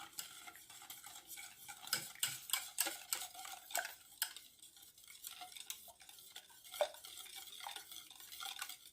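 A utensil stirring milk, lemon juice, sugar and flan powder in a saucepan, scraping with irregular light clinks against the pot.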